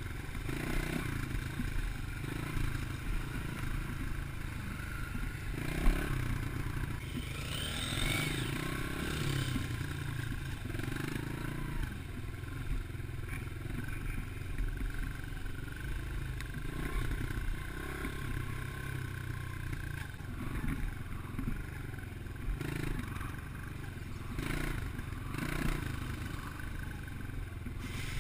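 Dirt bike engine running while riding along a rough dirt trail, its pull changing with the throttle, with wind rushing over the helmet-mounted microphone. A sharp knock about six seconds in.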